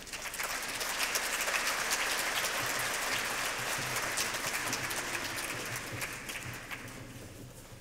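Audience applause, a dense patter of many hands clapping, building up over the first second and dying away near the end.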